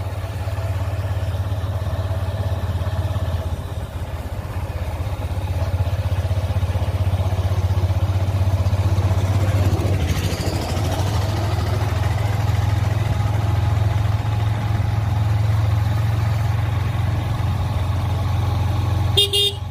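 Motorcycle engine running steadily while riding at an even speed, a constant low drone under a steady rush of road and wind noise. A short sharp sound comes near the end.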